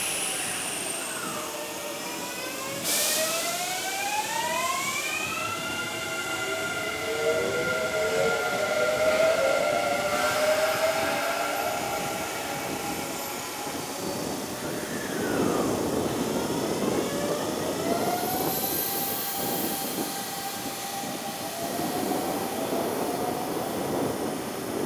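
Hanshin 5500-series "Jet Car" commuter train pulling out of the station. A short hiss of air about three seconds in is followed by the VVVF inverter traction motors whining in several tones that rise together in pitch as it accelerates, then level off. Wheel and running noise grows louder later as the cars roll by.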